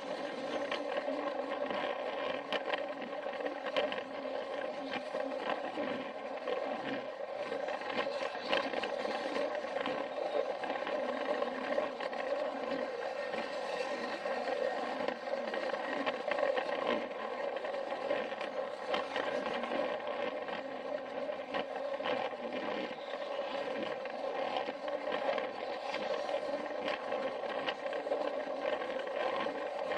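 Thomas Plarail toy train's small battery motor and gears whirring steadily as it runs, with frequent irregular clicks from its wheels crossing the plastic track joints, heard close up from on board the train.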